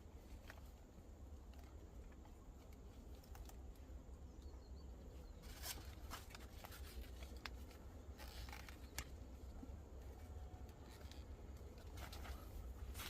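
Faint scattered rustling and a few sharp crackles, with a low steady rumble underneath.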